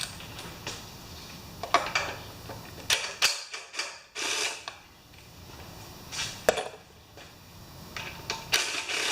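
Metal hand tools and bolts clicking and clinking at irregular intervals, with a short rattle about four seconds in, as a 10 mm socket is used to unbolt parts from a Hyundai 3500-watt generator's air filter housing.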